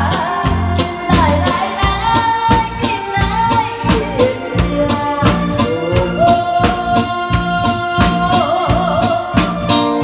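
A woman sings into a microphone over a live band of electric guitars, keyboard and drum kit keeping a steady beat. In the second half she holds one long note, with vibrato near its end.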